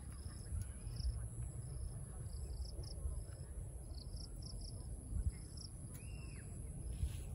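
Rural outdoor ambience of insects: short high chirps in irregular groups over a steady high-pitched whine, with a low rumble underneath. A single short arching call sounds about six seconds in.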